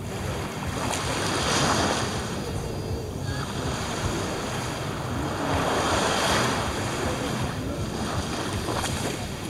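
Small waves washing up onto a sandy beach, the surf swelling twice, about one and a half seconds in and again around six seconds, with wind rumbling on the microphone throughout.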